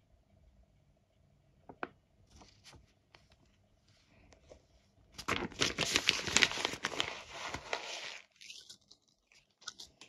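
Paper being torn and crinkled: a loud crackly rustling for about three seconds that stops suddenly, with a few small clicks and taps before and after it.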